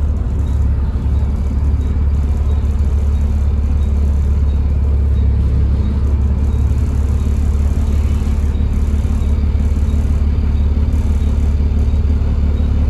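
Volvo B7TL double-decker bus's six-cylinder diesel engine and ZF automatic gearbox running under way with a steady low drone, heard from inside the passenger saloon.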